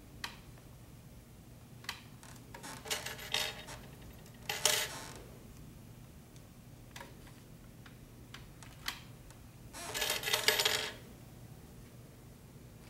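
Metal hairpins clinking and rattling in scattered short bursts of light metallic clicks, the loudest about ten seconds in.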